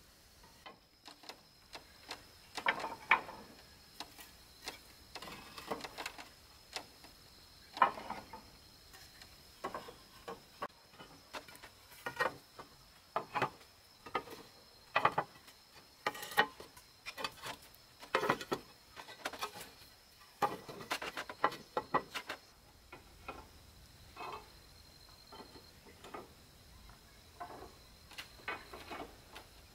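Clay roof tiles clinking and clacking as they are set one by one onto wooden roof battens and against each other: irregular sharp knocks, each with a short ringing tail.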